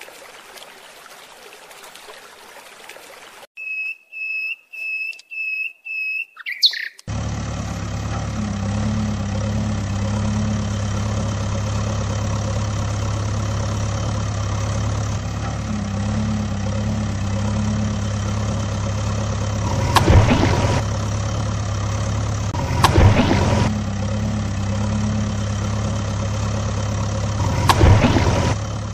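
Backhoe loader diesel engine sound effect running steadily, starting abruptly about seven seconds in, with three brief loud surges in its last part. Before it come six short high beeps about half a second apart.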